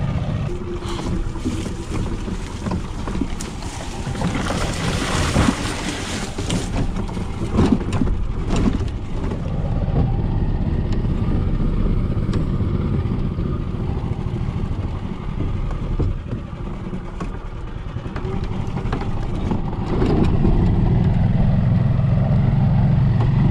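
A golf cart running steadily as it drives along a grassy trail. For a few seconds early in the middle there are scrapes and knocks as overgrown brush rubs against the cart. The motor hum grows louder about twenty seconds in.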